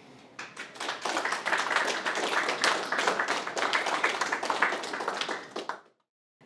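Audience applauding: the clapping starts about half a second in, quickly builds to a full round, and cuts off suddenly near the end.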